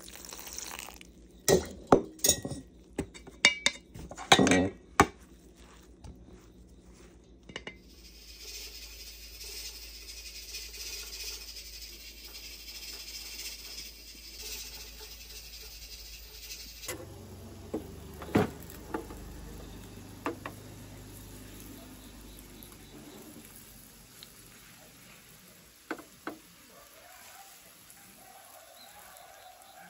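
Spoon knocking and clinking against a stainless steel mixing bowl as flour and garlic chives are stirred together, the loudest knocks in the first five seconds. A few scattered knocks and clinks follow later.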